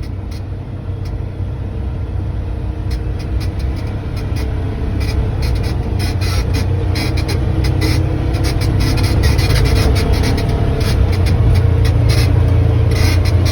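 Polaris Ranger side-by-side utility vehicle driving, its engine running steadily under a low rumble, with frequent rattles and knocks, getting louder over the second half.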